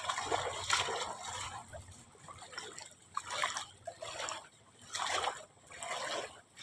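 Wading through shallow floodwater on a paved street, several separate sloshing splashes a second or two apart.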